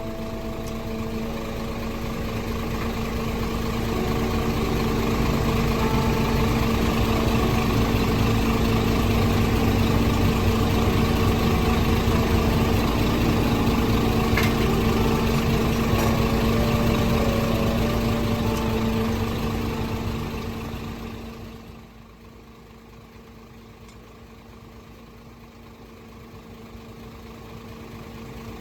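Isuzu Forward FTR34 truck's diesel engine idling with a steady hum. About three-quarters of the way through the sound drops sharply to a much quieter level, then slowly builds again near the end.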